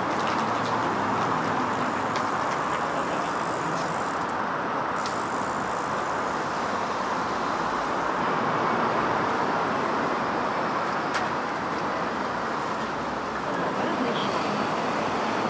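City street traffic: cars passing, giving a steady wash of engine and tyre noise.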